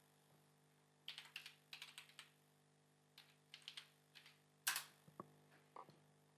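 Computer keyboard typing: short, quiet runs of keystrokes as a login password is entered, then one louder key press about three-quarters of the way through that submits it.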